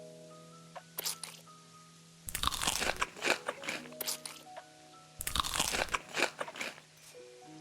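Crisp food being bitten and chewed close to the microphone: loud crunches in clusters, the longest two about a second each, over soft background music.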